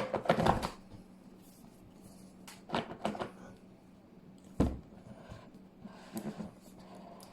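A cardboard product box being handled and opened, giving a series of separate knocks, taps and scrapes. There is a cluster of knocks at the start, more about a third of the way in, and a sharp knock a little past halfway.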